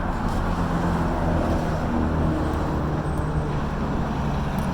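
Steady road traffic noise with a low engine hum, as of vehicles running close by.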